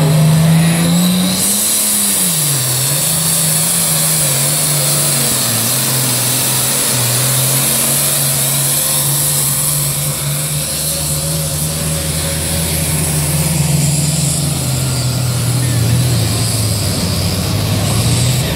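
International 666 pulling tractor's engine at full power, loud, under heavy load while dragging a weight-transfer sled. The pitch climbs and then dips about two seconds in, then holds steady as the tractor is bogged down by the sled.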